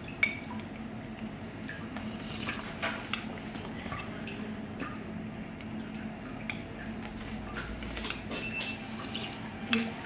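Spoon clicking and scraping against a bowl as soup is scooped, with one sharp click just after the start and lighter taps scattered after it, over a faint steady hum.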